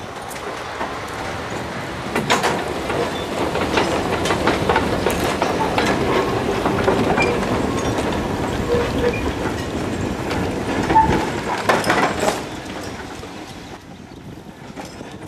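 Small electric tramway locomotive and a tower wagon rolling over tram track, wheels clattering and clicking over rail joints and points. The clatter eases off about 12 seconds in.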